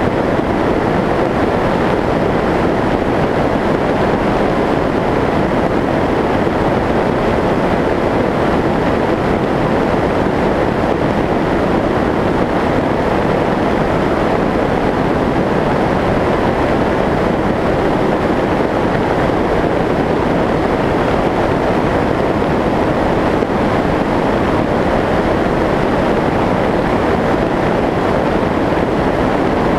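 Steady rush of airflow over the onboard camera of a Skyshadow S800 flying wing in cruising flight, a loud, even noise that holds constant throughout.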